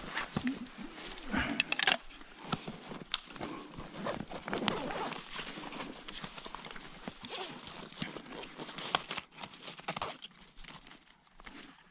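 Irregular rustling with many small clicks and knocks from hands handling gear and clothing close to the microphone.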